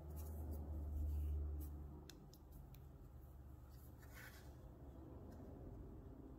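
Faint handling sounds of thread being worked through the guides of a mini sewing machine by hand: a low rumble that swells and fades over the first two seconds, then scattered light clicks and a brief rustle about four seconds in.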